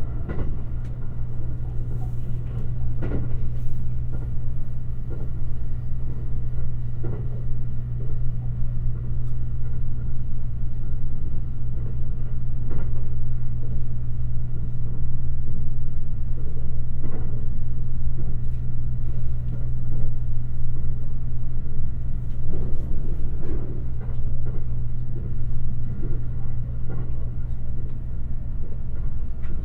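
Limited Express Shirasagi electric train running at speed: a steady low rumble with occasional soft knocks from the wheels on the track.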